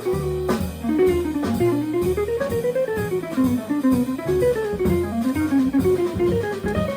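Jazz quartet playing: an electric guitar takes a fast single-note solo line that weaves up and down, over walking upright bass, piano and drums.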